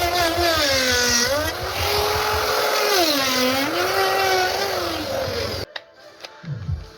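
High-pitched whine of a power tool's motor, dipping in pitch twice as it is loaded in the wood and winding back up. It cuts off suddenly near the end and gives way to music with a thumping bass beat.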